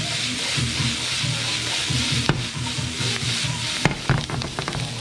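Diced onions and bell peppers sizzling in a nonstick frying pan as it is tossed, with a sharp knock about two seconds in and another near the end as the pan comes back down on the glass hob, followed by crackling pops.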